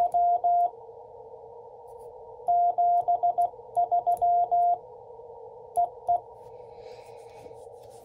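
Morse code (CW) sidetone from an Icom IC-705 transceiver, a single pitched beep keyed into dots and dashes by the VK3IL pressure paddle, in four short groups with pauses between them. Under it runs a steady receiver hiss, narrowed by the CW filter.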